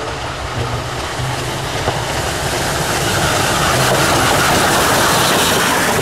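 Steam locomotive dressed as Thomas the Tank Engine hauling passenger coaches past at close range, the train noise growing louder as it draws level.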